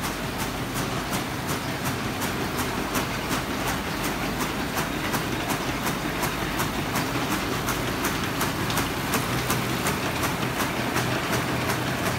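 Roller printing press running off joss paper (hell money). It makes a steady mechanical clatter with a regular clicking about three times a second over a low hum.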